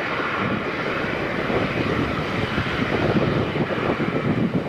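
Airbus A380 jet airliner taking off at full thrust, its four jet engines giving a steady jet noise with a heavy low rumble.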